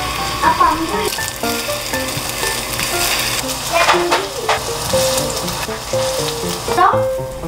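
Shrimp and chive patties sizzling as they fry in oil in a stainless steel pan, with a wooden spatula scraping the pan a few times as they are flipped and pressed down.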